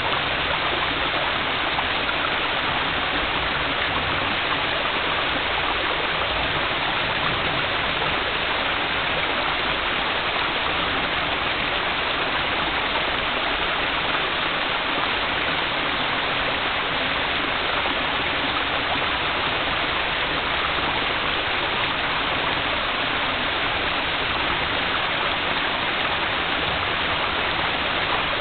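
Steady rush of a waterfall's falling water, an even unbroken roar that does not change.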